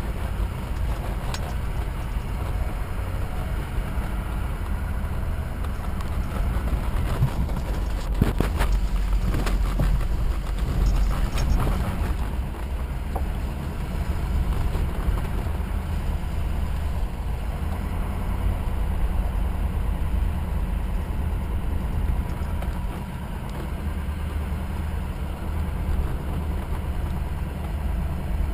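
Truck driving along a sandy dirt trail, heard from inside the cab: a steady low engine and tyre rumble. A spell of knocks and rattles comes about eight to twelve seconds in.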